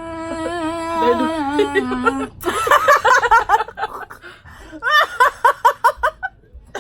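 Laughter: a long, high, wavering held voice, then bursts of laughter about two and a half seconds in, and another run of quick rhythmic laughs near the end.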